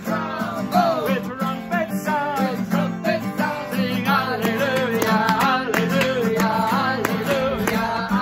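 Acoustic guitar strumming under several voices singing wordlessly, imitating instruments with their voices.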